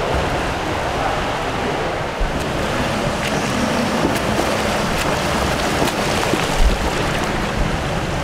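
Swimmers' strokes splashing and churning pool water: a steady wash of splashing, with a few sharper splashes here and there.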